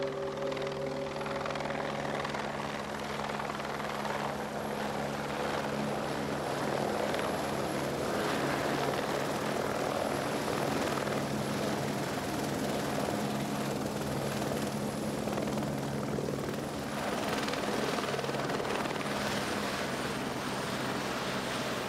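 A steady engine drone with a low hum.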